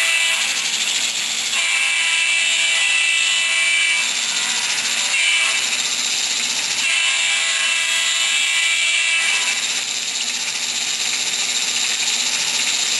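Locomotive sound effects from a Phoenix BigSound PB9 model-train sound board, played through its small speaker. A whistle blows the grade-crossing sequence over a steady hiss: the end of one long blast about a second in, then another long blast, a short one and a final long blast.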